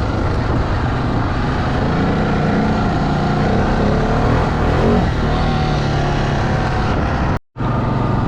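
Off-road bike's engine running as it is ridden along a trail, its pitch shifting a little as the throttle changes. The sound cuts out completely for a moment near the end.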